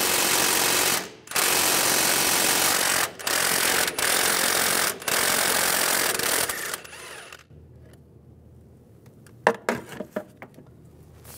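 A power wrench spinning an upper strut mount nut off its stud in several runs of one to two seconds with short breaks, stopping about seven seconds in. A few light metal clicks follow near the end.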